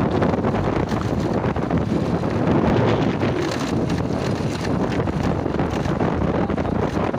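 Wind rushing over the microphone of a vehicle riding along a rough gravel road, with the vehicle's running and tyre noise underneath as one steady rumble.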